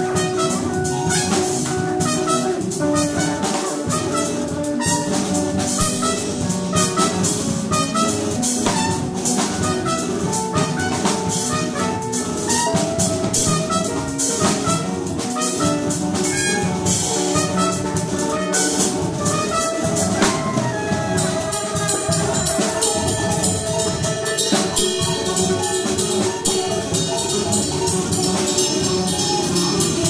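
Live experimental jazz improvisation: a drum kit played busily, with many fast cymbal and drum strokes, under several held pitched tones.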